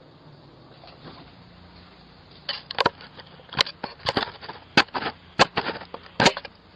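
A screwdriver knocking and scraping at a Ring doorbell camera, heard through the doorbell's own microphone: faint hiss, then from about two and a half seconds in a run of about eight sharp, irregular clicks and knocks.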